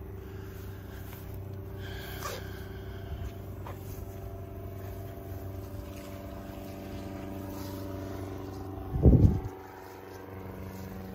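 A small engine running steadily at one speed, giving an even hum. About nine seconds in there is a single loud, brief low thump, and the engine's tone shifts slightly after it.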